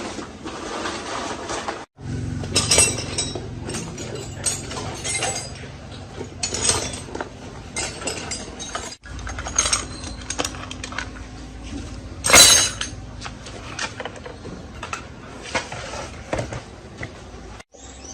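Workshop work sounds: a run of metal clinks, clicks and knocks from tools and parts being handled, with one loud sharp noise about twelve seconds in. The sound cuts off abruptly three times where short clips are joined.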